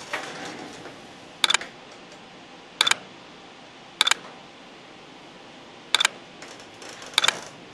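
Five short clusters of sharp clicks, each two or three clicks close together, spaced about one to two seconds apart.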